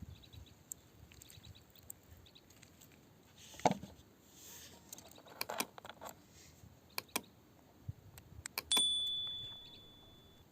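Scattered hard clicks and knocks of a metal tool on rock, the loudest near the end leaving a high metallic ring that fades over about a second and a half.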